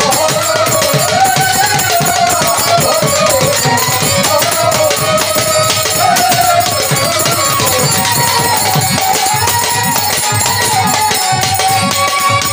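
Bamboo bansuri flute playing a folk melody in gliding, wavering phrases, over a steady rhythm of drum and jingle percussion.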